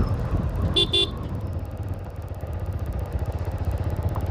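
A single-cylinder TVS Apache RTR 160 4V motorcycle engine runs at road speed. A vehicle horn beeps twice in quick succession about a second in.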